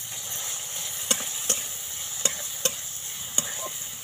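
Chopped onion, green chilli, tomato and garlic sizzling in hot oil in a karai (wok), stirred with a flat metal spatula that scrapes and clicks against the pan about five times.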